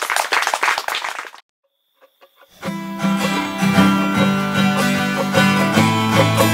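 A busy burst of sound cuts off a little over a second in, leaving a short silence. Then a 12-string acoustic guitar and two small plucked string instruments strike up an upbeat strummed tune with a strong, steady bass line.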